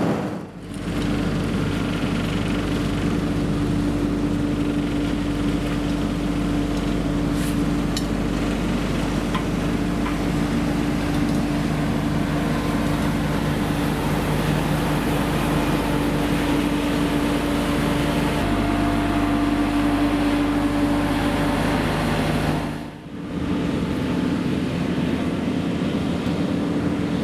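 A motor vehicle's engine running steadily with a constant drone and noise, briefly cut off near the start and again near the end.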